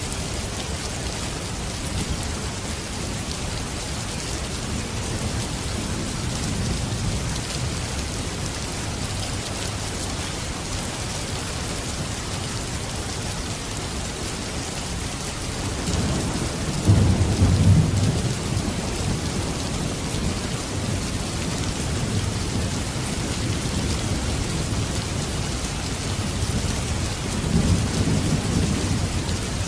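Steady rain falling, with low rolling thunder underneath; the loudest rumble swells up a bit past halfway and another comes near the end.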